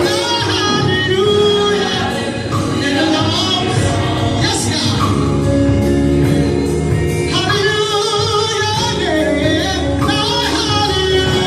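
Gospel music: voices singing over a steady instrumental accompaniment.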